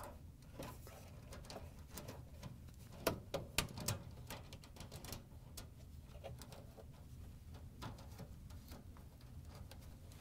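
Plastic wire-harness clips and a clamp clicking shut as gloved hands press a washer's wiring harness into them, with light rustling of gloves and wires between the clicks. A cluster of sharper, louder clicks comes about three seconds in.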